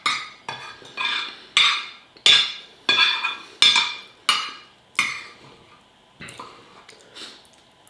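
Metal cutlery clinking and scraping against a dish, one stroke roughly every two-thirds of a second, each with a short ring; the strokes grow fainter and sparser about five seconds in.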